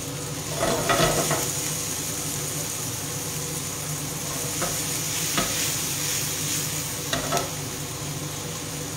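Sweet potato, asparagus and cherry tomatoes sizzling in oil in a frying pan while being stirred with a wooden utensil, which knocks and scrapes against the pan a few times, the loudest about a second in.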